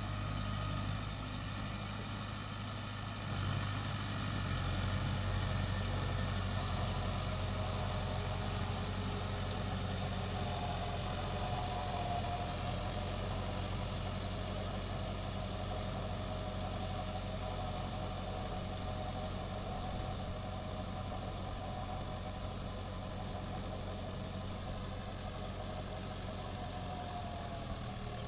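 Mahindra Novo 655 DI 4WD tractor's four-cylinder diesel engine running steadily at about 1500 rpm in first gear, driving a rotavator through wet paddy mud. The sound fades a little as the tractor pulls away, with a faint whine over it in the middle stretch.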